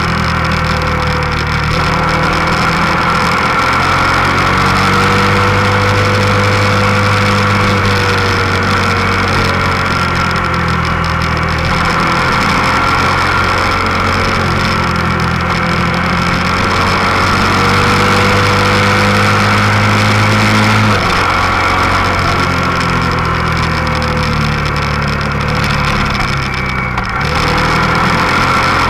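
Motorcycle engine running at road speed, heard from the bike itself, with a steady rush of wind and road noise. The engine note holds fairly steady and drops sharply about two-thirds of the way through, as with a gear change or easing off the throttle.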